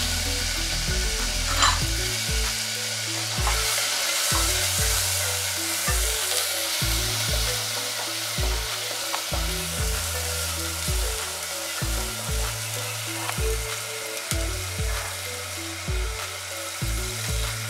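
Onion paste with grated ginger and garlic sizzling in hot oil in a non-stick pan, stirred with a wooden spatula.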